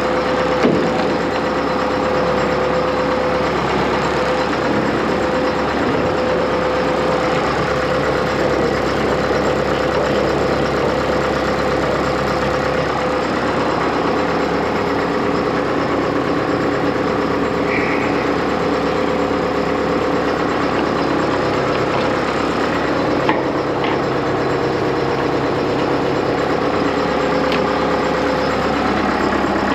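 John Deere 6430 tractor's four-cylinder diesel engine running at a steady speed, with a constant tone over it.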